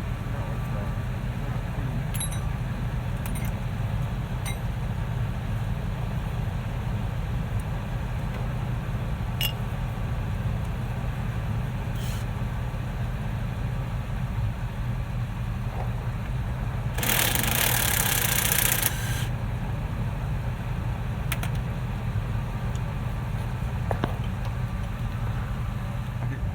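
Hand tools clinking on metal as a front suspension linkage bolt is worked out, with a steady low engine-like hum throughout. A hiss lasting about two seconds comes in about two-thirds of the way through.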